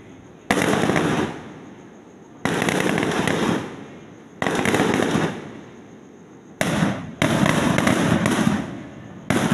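Fireworks going off in a series of sudden bursts about every two seconds, each a dense crackle that fades over about a second; near the end the bursts come closer together.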